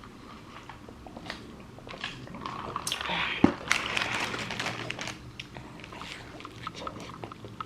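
Close-up eating: a person biting and chewing a grilled sourdough breakfast sandwich, with small crunches and wet mouth sounds, busiest a few seconds in.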